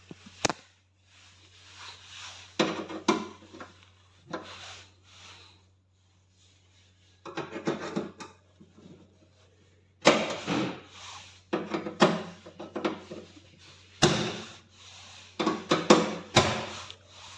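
A hand tool scraping and cutting at the microwave's moulded plastic fan-motor housing, in irregular rasping strokes with short pauses, busier in the second half.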